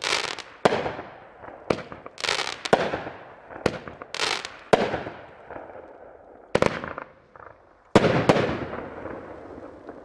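A 500-gram consumer fireworks cake firing: sharp reports come about once a second at an uneven pace, each followed by a fading hiss. The loudest pair comes about eight seconds in, then the sound dies away.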